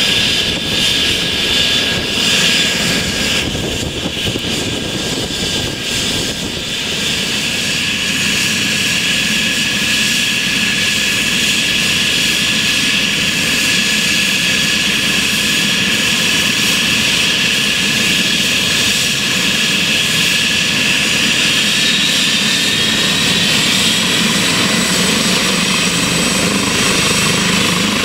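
Eurocopter EC135 air ambulance helicopter running on the ground with its rotor turning: a steady high turbine whine over the rush of the rotor blades, the whine rising slightly in pitch late on.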